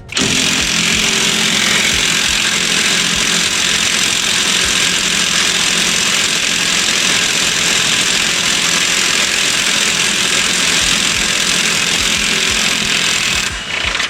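Impact wrench hammering without a break on a stubborn bolt, then cutting off suddenly near the end.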